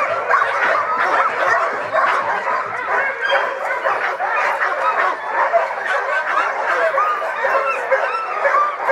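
Many sled dogs barking at once in a dense, continuous chorus of overlapping high calls: a harnessed team and the yard around it excited before pulling a cart.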